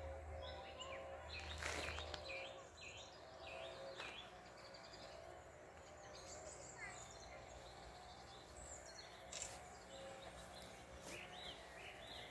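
Songbirds singing faintly: series of short, quick, repeated chirps, busiest at the start and again near the end, over a low outdoor background hiss. A few brief sharp clicks in between.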